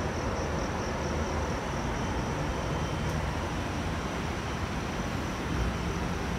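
Steady distant city traffic rumble heard from a high window, with a faint steady high-pitched tone over it.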